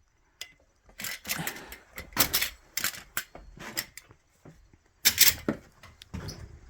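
Irregular knocks, scuffs and rustles of someone moving about on wooden pallets and boards, the loudest knock about five seconds in.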